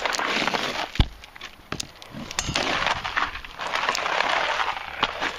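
Footsteps crunching on gravel, in stretches of about a second, with scattered sharp clicks; a strong click comes about a second in.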